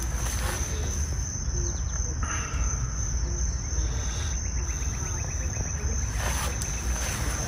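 Steady, high-pitched insect chorus of late-summer crickets or similar insects, over a low rumble of wind or handling on the microphone.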